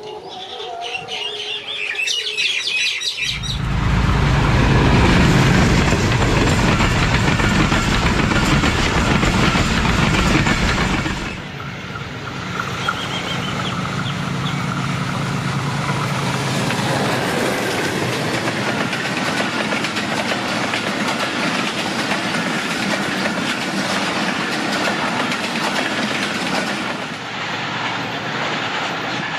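PHA-20 diesel-electric locomotive hauling a passenger express through at about 90 km/h. A loud, deep engine rumble sets in about three seconds in as the locomotive passes, and drops off sharply about eleven seconds in. It gives way to a steady rush and clatter of the coaches' wheels on the rails.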